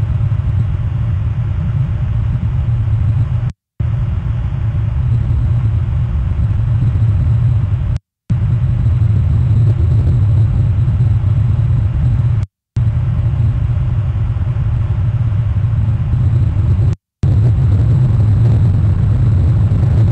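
Low, steady rumble of a passing cruise ship's engines. The audio drops out to complete silence for a split second four times, about every four and a half seconds.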